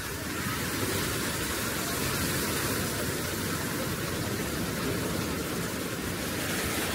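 Sea surf washing onto a sandy beach: a steady, even rush of noise with no rise or fall.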